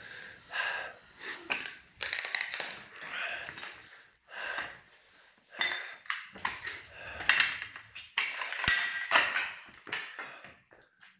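Irregular scuffing, rustling and sharp little clicks, with hurried breathing in between, as people move in the dark with a phone in hand.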